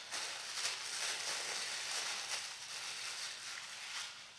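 Thin plastic bag crinkling and rustling as it is handled, fading toward the end.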